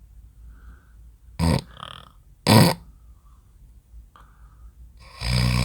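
A man snoring in deep sleep. After a short pause come two short, loud snorts, about a second and a half and two and a half seconds in. Near the end the snoring starts again with one long, loud snore at a low, steady pitch.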